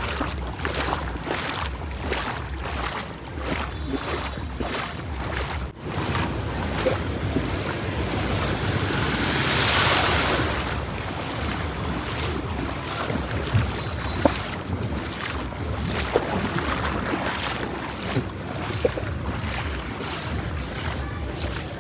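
Floodwater rushing across a road, with wind buffeting the microphone. The rush swells louder and fades again about halfway through.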